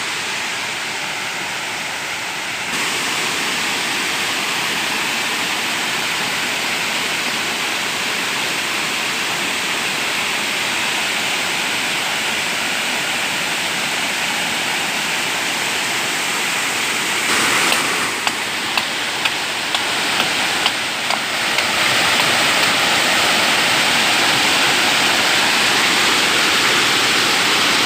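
Waterfall rushing as a steady roar of falling water, growing louder about three quarters of the way through. A few short knocks sound shortly before that.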